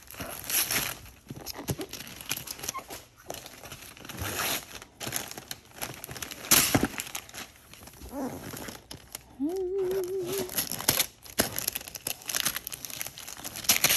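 Christmas wrapping paper crinkling and tearing in irregular strokes as a small child rips it off a gift box, with one sharper tear about six seconds in. A short wavering hum-like tone sounds about nine seconds in.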